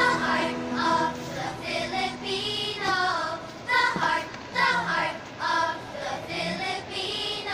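Singing with music, a voice carrying a wavering melody throughout.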